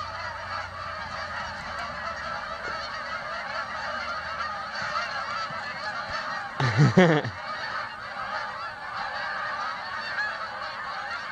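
A large flock of geese honking, a dense steady chorus of overlapping calls. About seven seconds in, one louder, lower call stands out briefly.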